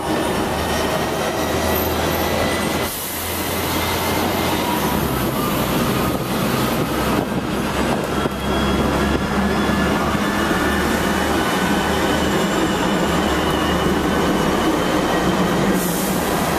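Hong Kong double-decker tram running along its street tracks: a steady rumble of steel wheels on rail, with faint whining tones over it.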